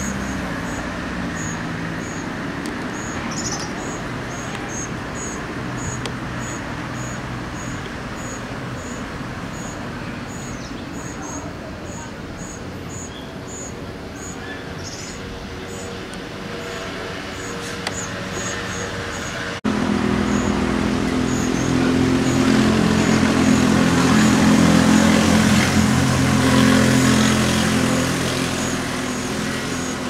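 Outdoor background of a steady low hum, with a short high-pitched chirp repeated about twice a second. About twenty seconds in, the sound cuts and comes back louder, with a deeper steady hum.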